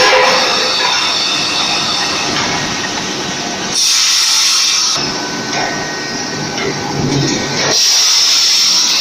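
Hydraulic ring-rolling and forging machinery running with a steady mechanical din, with loud bursts of hissing about four seconds in and again near the end.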